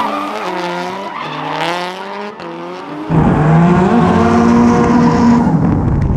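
Drift car engine at high revs, its pitch rising and falling as the throttle is worked, with tyres squealing. About three seconds in the sound abruptly turns louder and deeper.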